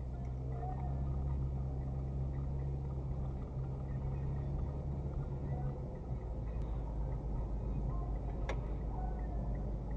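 Car driving through town: steady engine hum and road noise, the engine note shifting about six seconds in, with one short click near the end.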